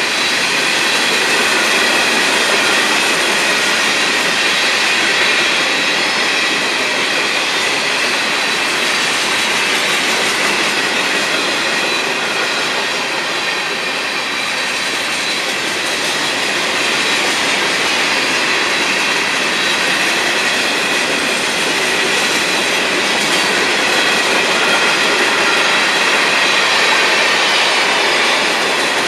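Freight train hopper cars rolling past on steel wheels and rail: a steady, dense rumble and rattle of the passing cars, with a faint steady high-pitched ringing running through it.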